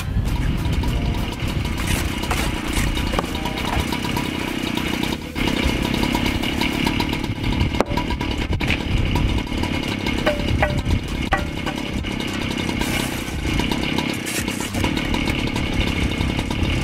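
Strong wind buffeting an uncovered microphone: a loud, gusting low rumble throughout, with a few light clicks and taps of tools on stone.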